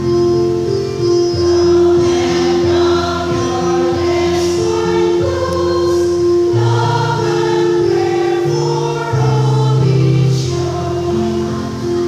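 Women's choir singing, holding long notes that change every second or two.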